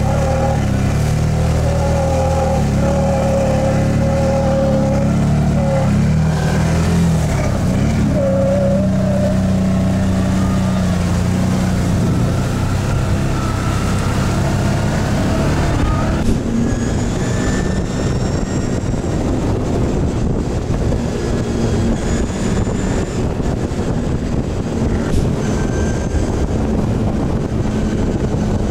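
Quad bike (ATV) engine running under way, its pitch shifting as it goes. About sixteen seconds in the sound changes suddenly to a noisier drive with faint rising whines.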